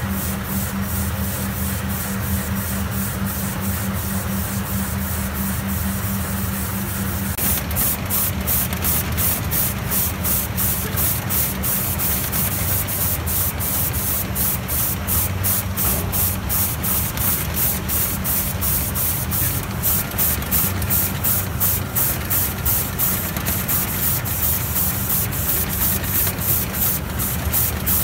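Omron delta-robot pick-and-place line running: a steady machine hum under quick, evenly repeating air hisses, several a second, in step with the robots' picks. The hissing becomes much louder about seven seconds in.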